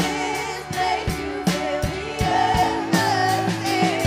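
Live worship band playing: a woman sings a slow, wavering melody over held keyboard chords and a steady drum beat.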